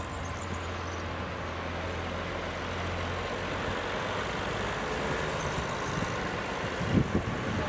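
Farm tractor engine running as it drives along the road, under a steady hiss of traffic and wind. Wind knocks on the microphone near the end.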